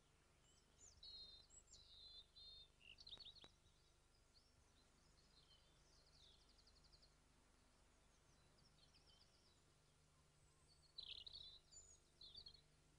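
Faint songbird song in short, quick, varied phrases of high chirps and trills, in a cluster over the first few seconds and again near the end, with quieter snatches between.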